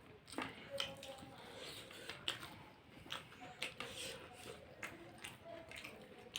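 People biting and chewing fried snacks such as cutlets and samosas, with faint scattered crunches and small clicks.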